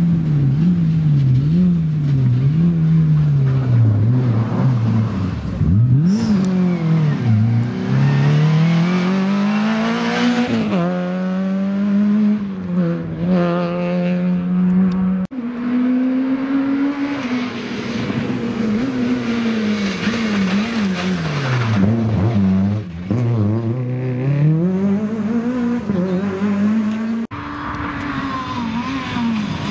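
Rally car engines revving hard up through the gears, the pitch climbing and then dropping at each shift, as several cars in turn drive flat out along a stage.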